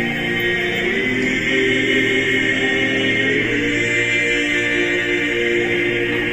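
An a cappella choir singing slow, long-held chords in several voice parts, with the chord shifting about midway.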